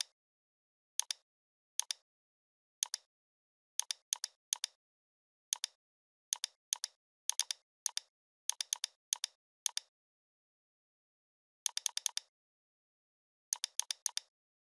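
Computer mouse and keyboard clicks in short groups of one to four, with dead silence between the groups.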